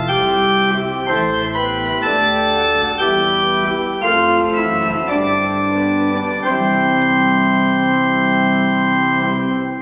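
Church pipe organ playing a slow sequence of sustained chords, ending on one long held chord that fades into the church's reverberation near the end.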